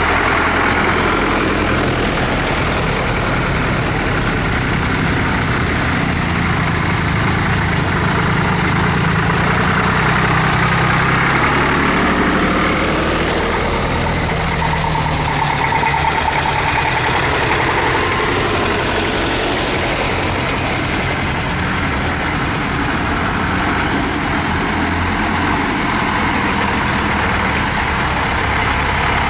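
Tractor engines running, with the engine note rising and then falling back about halfway through.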